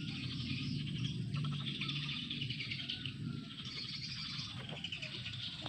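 Birds and insects chirping together in a continuous dense, pulsing high chirr.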